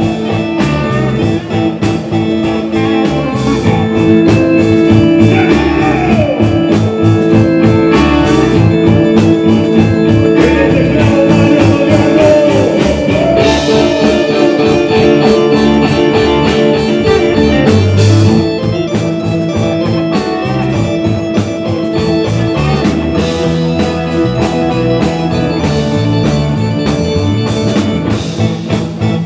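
Rock band playing live in an instrumental passage: electric guitar bending notes over steady bass, keyboard and drums.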